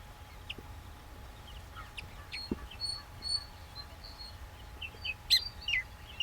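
Baya weavers chirping at a nest colony: scattered short chirps and a few thin whistled notes, with two louder chirps about five seconds in.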